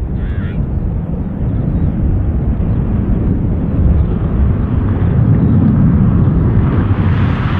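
Qantas Airbus A380's four Rolls-Royce Trent 900 jet engines running as the airliner lines up, a steady deep rumble. A rushing hiss grows over it in the second half, getting louder toward the end.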